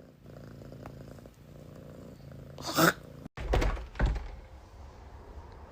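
A cat purring steadily, broken about two and a half seconds in by a short sharp sound, followed by a couple of low thumps.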